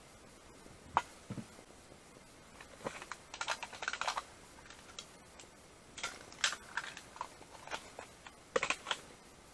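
Irregular light clicks, taps and scrapes of a frying pan and utensil being handled, with one sharp click about a second in and busier clusters around three, six and nine seconds in.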